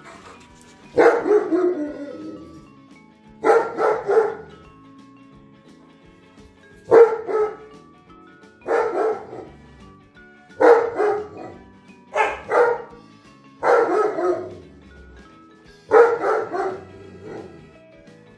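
Dog barking in repeated bursts, each a quick run of several woofs, about eight bursts with pauses of a second or two between them.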